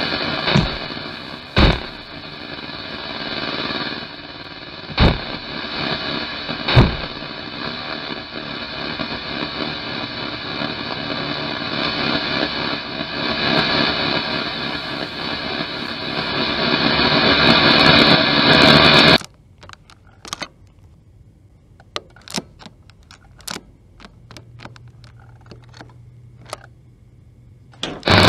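Film sound design: a dense, noisy drone punctuated by several sharp hits in the first seven seconds, swelling louder until it cuts off suddenly about two-thirds of the way in. A quiet stretch of scattered clicks follows, with a low hum coming in near the end.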